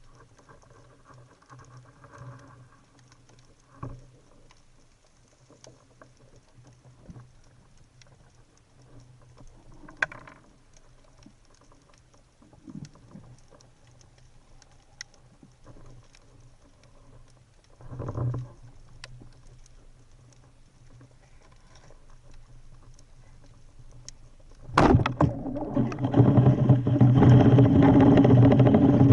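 Underwater sound on a spearfisher's camera: faint crackling with scattered clicks and a few knocks. About 25 seconds in, a sharp knock is followed by a loud, rough water noise that lasts the last few seconds.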